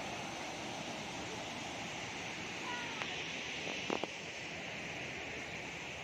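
Steady rush of river water pouring down the rocky cascades of Randha Falls, with two brief clicks about halfway through.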